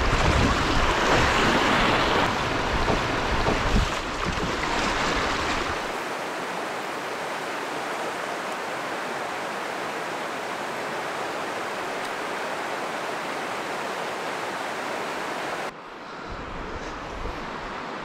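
Shallow river rapids rushing over rocks. For the first six seconds the rush comes with a low rumble of wind on the microphone as the canoe runs the whitewater. After that it is a steady rush of flowing water, which drops to a quieter flow near the end.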